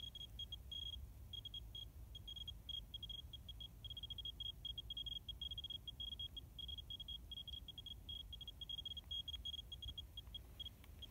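Radex RD1008 Geiger counter beeping rapidly at random intervals, short high beeps that often run together into longer stretches: a high count rate from strongly radioactive samples, uranium ore and uranium glass, about a metre away.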